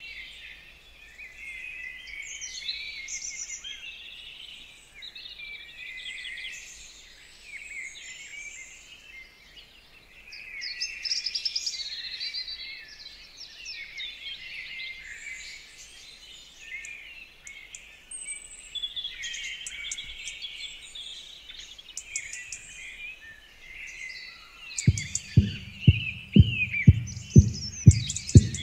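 Many small birds chirping and singing, as morning birdsong ambience. Near the end, an electronic drum beat kicks in at about three beats a second as the song's intro starts.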